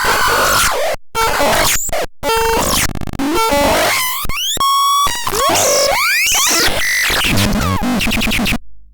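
Synthesizer demo sounds: a fast, chaotic run of electronic tones and noise that changes every second or so, with pitches gliding up and down in the middle and several abrupt cuts to silence.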